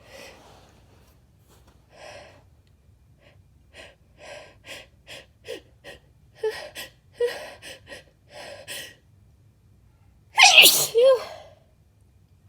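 A woman's short, quickening gasping breaths as a sneeze builds, then one loud sneeze about ten seconds in, part of a sneezing fit set off by sneezing powder.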